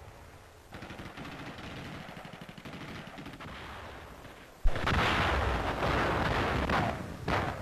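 Battle sounds on a wartime newsreel soundtrack: rapid gunfire rattling, then a little past halfway a sudden loud blast followed by heavy continuous firing, with another short burst near the end.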